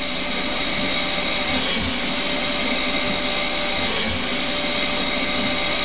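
Hercus PC200 CNC lathe running steadily while a full-profile carbide insert cuts a 1/2-inch, 20 tpi thread in free-cutting mild steel, with the steady hiss of an air-driven coolant spray mister.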